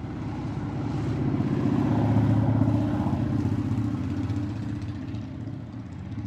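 A motor vehicle's engine running, a steady low rumble that swells to its loudest about two to three seconds in and then eases off.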